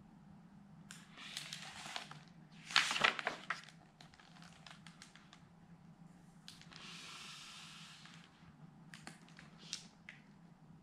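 A paper page of a hardcover picture book being turned by hand: rustling, with a sharp swish about three seconds in, then softer rustles and light taps as the book is handled.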